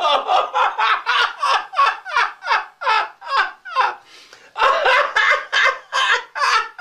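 A person laughing hard in quick 'ha-ha-ha' bursts, about three or four a second, each falling in pitch, with a short break about four seconds in before the laughter starts again.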